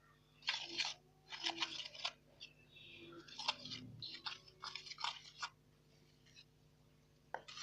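A thick dough of wheat flour, body lotion and Sunlight dish soap being stirred in a container. It gives a run of irregular, noisy scraping strokes that stop about two thirds of the way in.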